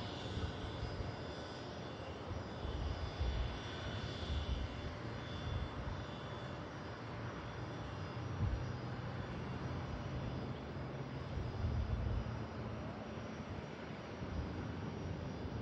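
Jet aircraft engines running: a steady rumble, with a faint high turbine whine over the first several seconds that fades away.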